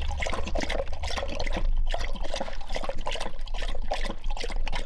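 Weimaraner lapping water from a plastic bucket: a fast, steady run of wet laps.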